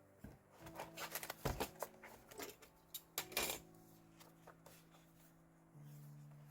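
Paper and stationery being handled for diary decorating: light rustles and small clicks in a cluster about a second in and again around three seconds in, over faint steady background music.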